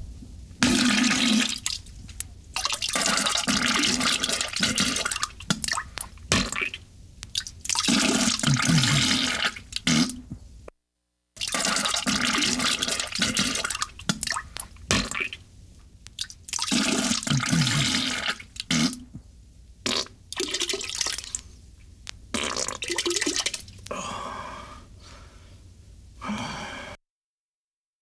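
Comedy diarrhea sound effect: a long string of wet, sputtering fart bursts and splattering noise with low buzzing tones. It breaks off in silence for about half a second around eleven seconds in, then carries on in the same way and stops abruptly about a second before the end.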